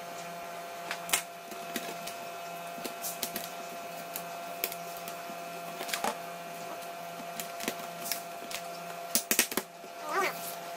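Scattered light clicks and taps of a screwdriver and hands on a laptop's plastic and metal case, with a quick cluster of louder knocks near the end as the laptop is turned over, over a steady faint hum.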